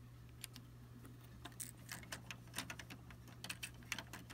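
Light clicking and clatter of small LEGO plastic pieces being handled: a little crate of bricks closed up and pressed back into place on the model, the clicks coming more often from about a second and a half in. A faint steady hum runs underneath.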